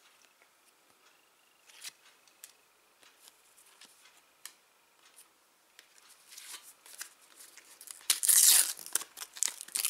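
Faint rustles and ticks of sticker cards being handled, then a shiny sticker packet being torn open and crinkled by hand, growing loud from about eight seconds in.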